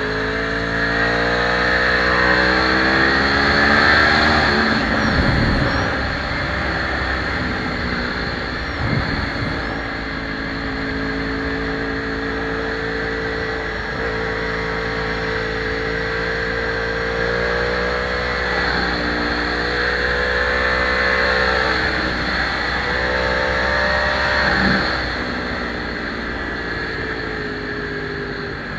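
Yamaha R1 inline-four sportbike engine at speed, with wind rushing past. It climbs in pitch over the first few seconds and changes note about five seconds in. It then runs steadily, climbs again later, and drops off about 25 seconds in.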